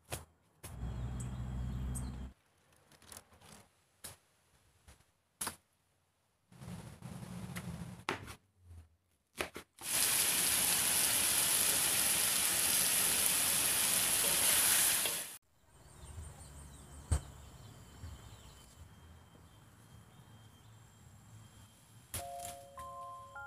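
A montage of sounds: two short low hums with clicks, then about five seconds of loud, even sizzling as pineapple and salted fish fry in a wok, cutting off suddenly. A few glockenspiel-like music notes start near the end.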